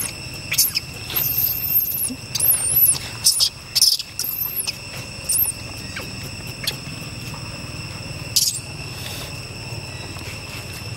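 Newborn long-tailed macaque squealing: a run of thin, very high-pitched cries over the first half, then one more near the end, over a steady high insect drone.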